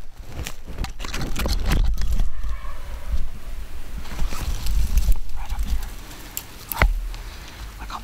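Footsteps rustling through dry grass and brush, then low rumbling handling noise as the camera is moved and set down in the grass. A single sharp knock comes near seven seconds in.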